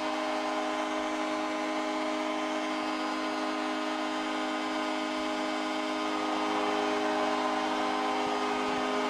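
Arena horn sounding one long unbroken blast over a cheering crowd, marking the home team's win.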